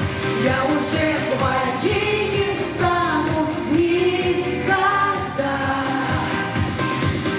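A pop song with a sung vocal line over a steady beat.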